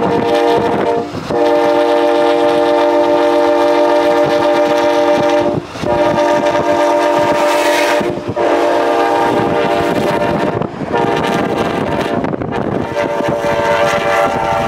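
Locomotive air horn blowing long blasts, a steady chord held for several seconds at a time with brief breaks about four times, over the noise of the passing train.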